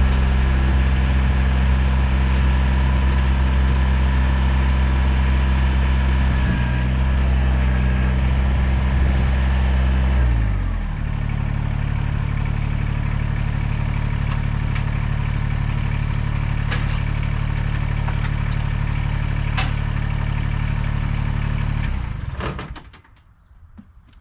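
Kubota BX23S compact tractor's three-cylinder diesel engine running at high throttle, throttled back to a lower, steady idle about ten seconds in, then shut off near the end.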